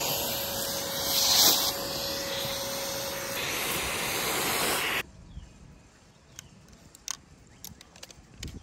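Shop vacuum running with a steady rushing noise, switched off abruptly about five seconds in; only a few faint light ticks follow.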